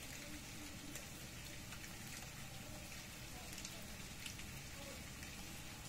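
Steady rain falling on a tree's leaves and the ground. Single drops give sharp ticks here and there through the even hiss.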